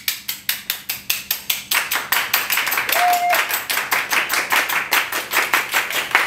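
A small group clapping hands together in a steady rhythm, about four claps a second, keeping a beat for a Tatar song. The clapping grows fuller about two seconds in.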